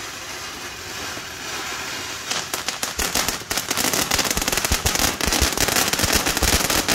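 Ground fountain firework spraying sparks: a steady hiss at first, then, a little over two seconds in, breaking into dense, rapid crackling that gets louder.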